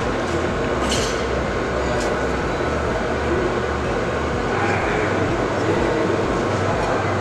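Steady mechanical rumble of machinery running, with a pulsing low drone and scattered light clicks.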